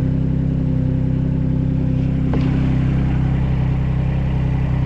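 Diesel engine of a heavy machine running steadily at idle, with one faint click about two and a half seconds in.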